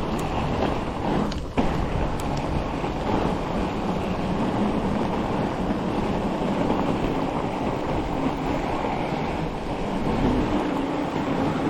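Steady rush of wind over the microphone mixed with fat-bike tyres rolling over firm groomed snow on a fast ride. The noise drops out for a moment about a second and a half in.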